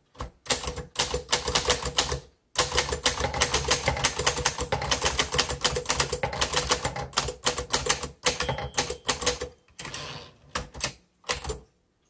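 Keys of a 1949 Underwood Champion Finger Flite manual typewriter typed in a fast run, the typebars striking the platen several times a second. The run breaks off briefly about two and a half seconds in and turns to slower, separate strikes near the end.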